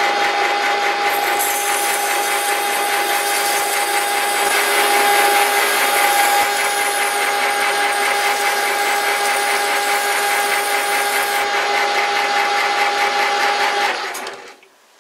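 Metal lathe running steadily with a constant tone while a hand-held diamond hone is pressed against the spinning workpiece, adding a high hiss for most of the time. Near the end the lathe is switched off and runs down.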